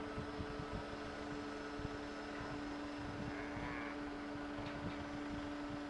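Faint steady mechanical hum with a few constant tones.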